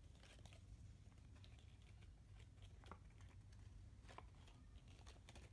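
Near silence: faint, scattered light clicks over a low steady hum.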